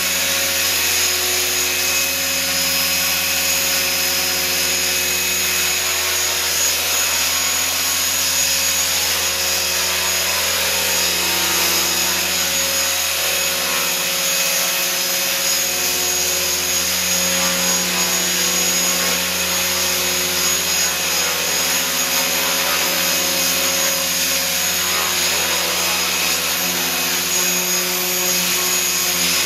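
Small electric RC helicopter hovering and flying low: a steady whir of main and tail rotors with a high motor and gear whine, its pitch drifting gently up and down.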